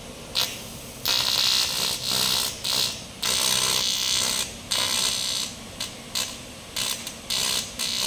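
Electric arc welding on steel tube: the arc crackles and hisses in bursts, cutting in and out as it is struck, held for a second or more, and breaks again, with shorter, choppier bursts near the end.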